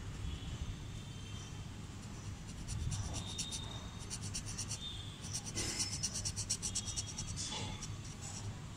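Ink pen nib scratching across drawing paper in a run of quick short strokes as fine hatching is drawn, the strokes coming thickest in the second half.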